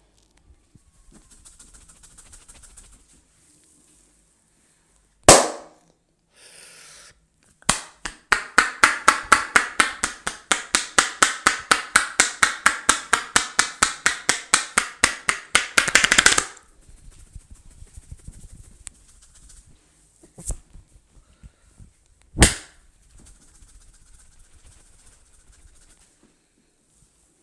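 Head-massage slaps: hands striking in a long, even run of sharp smacks at about five a second, lasting roughly eight seconds. A few single loud strikes come before and after the run.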